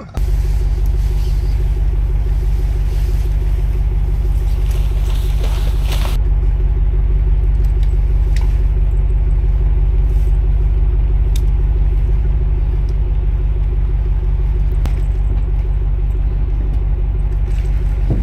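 A steady, loud low rumble with a faint hum above it, starting suddenly and holding at an even level.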